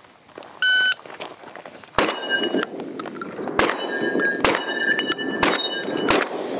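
A shot timer beeps once, then a Beretta A300 Ultima Patrol 12-gauge semi-automatic shotgun fires five shots in quick succession. Each shot is followed by the ring of a hit steel target.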